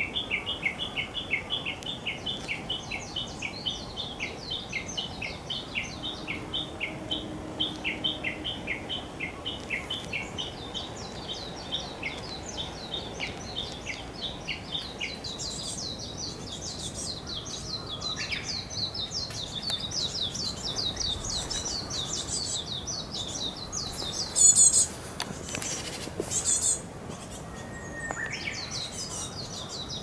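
Small woodland songbirds calling: long runs of quick, high, repeated chirps. Higher notes join about halfway through, and a few louder sharp calls come near the end.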